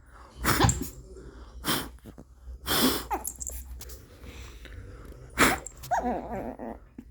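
Shih tzu barking in short bursts, about five in the space of a few seconds, in protest at air being blown at it.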